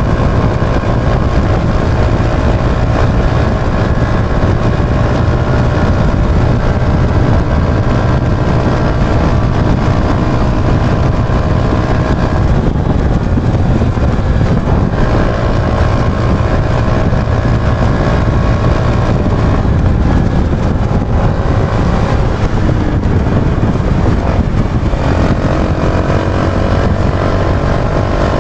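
Yamaha YB125Z DX motorcycle's 125 cc single-cylinder four-stroke engine running on the move during a test ride. The engine note shifts pitch a few times and climbs again near the end.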